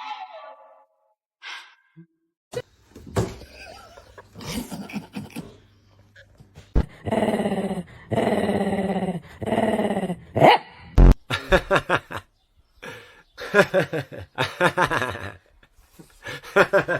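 A dog barking and growling, with three long drawn-out calls near the middle and a couple of sharp knocks.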